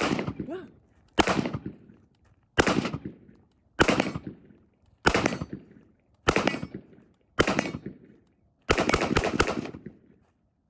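MK18 short-barreled 5.56 carbine fired unsuppressed with a muzzle brake: seven single shots about a second apart, then a quick string of about five shots near the end, each shot cracking sharply and trailing off in under a second.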